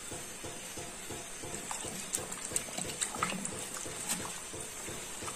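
Wet squelching of hands scrubbing raw red tilapia pieces with lime and salt in a plate, a quick repeated rubbing stroke, about four a second at first, with a few light clicks and taps in the second half.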